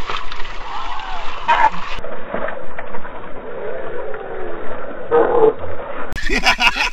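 People's voices mixed with water splashing around men wading in shallow sea water. The sound turns dull and muffled about two seconds in and brightens again near the end.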